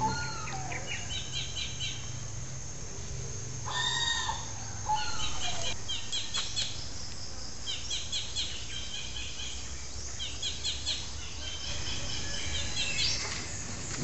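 Birds calling: short high chirps repeated in quick series throughout, with a louder call about four seconds in, over a steady low hum.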